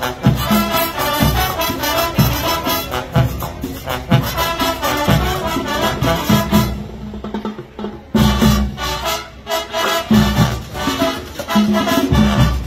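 A marching band playing a Latin-style tune with brass and drums. The band drops back briefly about seven seconds in, then comes back in at full volume.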